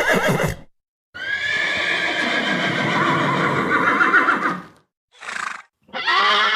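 Horse whinnying: a call trailing off about half a second in, then one long neigh of about three and a half seconds that quavers toward its end, a short burst, and another neigh starting near the end.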